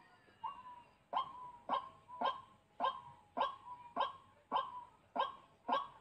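White-breasted waterhen (dahuk) calling: a loud, harsh single note repeated nearly twice a second, about ten times in a steady rhythm after a brief pause at the start.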